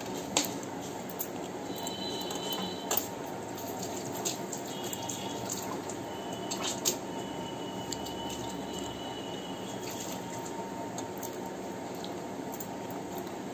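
A person eating rice and curry with her hand: chewing, wet mouth smacks and sucking food off her fingers, with a few sharp clicks, over a steady background hiss.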